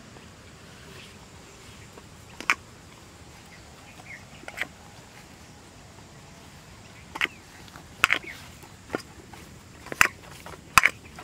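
Scattered sharp clicks and clinks, more frequent in the second half, as hands knead fish bait on a steel plate, with fingers and bangles knocking against the metal.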